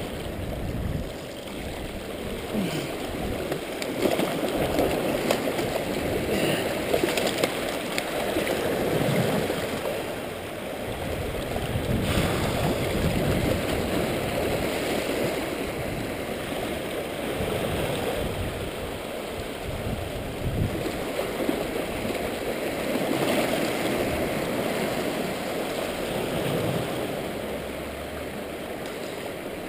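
Sea waves washing and surging over rocks, the rush of water swelling and easing every few seconds.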